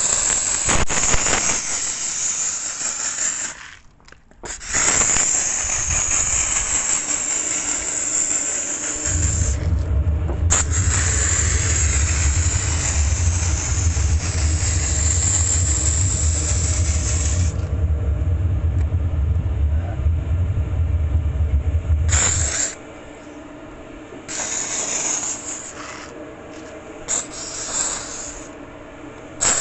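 Dry-steam cleaner wand hissing as steam is sprayed onto a car's hood. The hiss comes in long bursts through the first half and then in short spurts near the end. A low steady hum joins about nine seconds in and stops about twenty-two seconds in.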